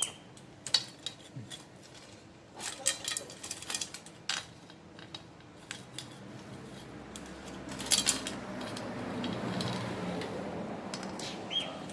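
Bicycle chain being removed with a chain tool: scattered metallic clicks and clinks of the chain and tool, then a steadier stretch of rasping metal noise lasting about three seconds, starting about two-thirds of the way in.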